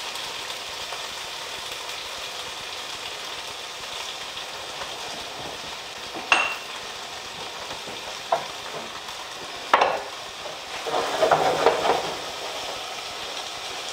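Gnocchi, diced tomatoes and garlic frying in butter in a cast-iron skillet: a steady sizzling hiss. A few sharp knocks come at about six and ten seconds in, and a short clatter about eleven seconds in.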